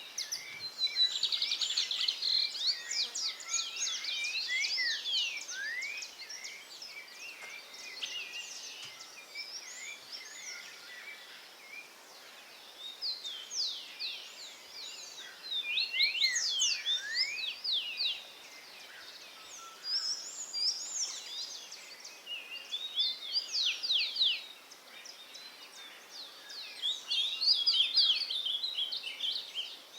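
Wild bird song: phrases of rapid, high notes, many sweeping down in pitch, coming in bursts with pauses of a second or more between them, over a faint steady background hiss.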